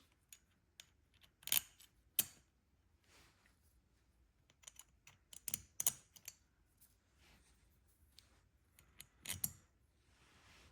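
Light clicks and clinks of small metal carburetor parts, line-holding tabs and screws, being handled and set in place on a Mikuni carburetor. The sharpest clicks come about a second and a half in, in a cluster around six seconds, and again near nine and a half seconds.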